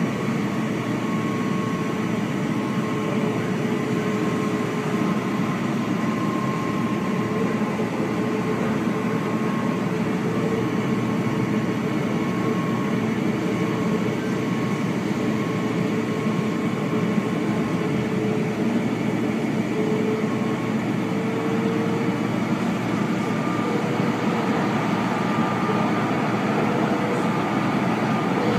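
Edmonton LRT light-rail car running at speed, heard from inside the passenger cabin: a steady rumble of wheels on rails with a faint whine held at a constant pitch.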